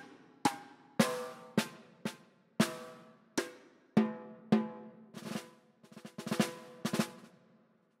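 Sampled orchestral snare drum from the UVI Orchestral Suite, played note by note. Single hits come about twice a second, each ringing out, then quicker clusters of strokes like short rolls near the end.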